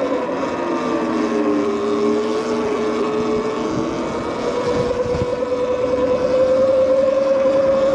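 Electric bike motor whining steadily, its pitch dipping as the bike eases off and climbing again about halfway through as it speeds back up.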